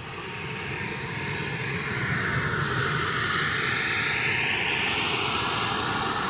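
Radio-controlled MB-339 model jet's engine running on the ground, a steady high whine over a rushing blast. The power comes up at the start, and the rushing sweeps down and back up in pitch.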